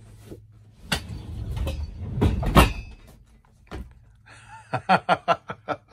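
Camper Comfort rollout sleeper sofa being pushed back down into a couch: a knock about a second in, then the bed section sliding shut with two heavy thuds. Near the end comes a run of quick short vocal bursts.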